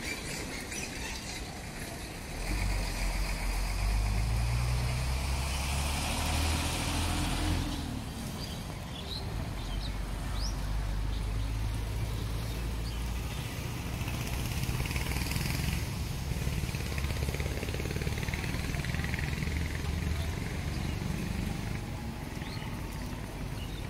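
An engine running steadily with a low rumble, setting in about two and a half seconds in.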